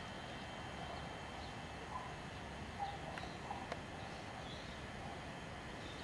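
Faint scattered bird chirps over steady outdoor background noise, with a couple of light clicks a little past the middle.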